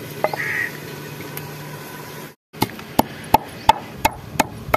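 Long wooden pestle pounding garlic cloves and coriander seeds in a heavy wooden mortar. A regular run of wooden thuds, about three strikes a second, starts about halfway in.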